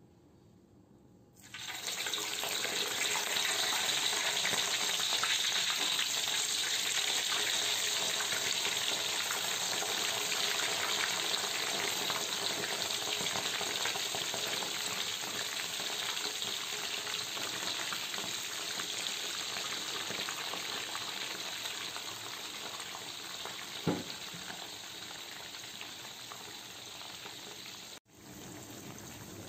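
Beef lung slices frying in hot oil in an aluminium wok: a loud, steady hissing sizzle starts suddenly about a second and a half in as the wet pieces hit the oil, then slowly eases off. A single sharp knock a few seconds before the end.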